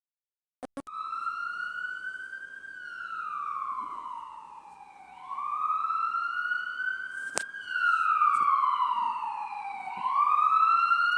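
SAMU ambulance siren sound effect played from a phone: a slow wail that starts after a click just under a second in, then rises and falls in pitch, about five seconds per sweep, through a little more than two sweeps.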